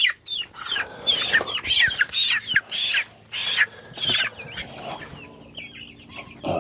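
Young meat chickens peeping loudly: a quick run of high, falling peeps for about four seconds, then fainter ones. These are cold, wet birds after a storm, and falling peeps like these are the chicks' distress call.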